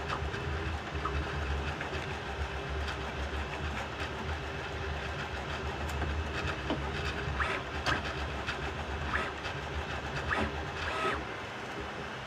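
Bambu Lab A1 Mini 3D printer running a print: a steady mechanical hum of stepper motors and fan, with shifting held tones and scattered sharp clicks from the moving head.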